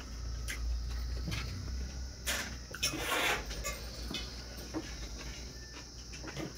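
Eating sounds of a man eating rice by hand: scattered wet mouth clicks and lip smacks while chewing, with a louder, longer smack around three seconds in as he takes a mouthful.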